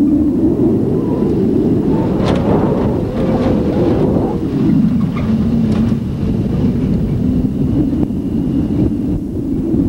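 Truck engine and road noise heard from inside the cab, a loud steady drone. About two seconds in the engine note climbs, then drops away again a little before halfway, with a few short sharp rattles.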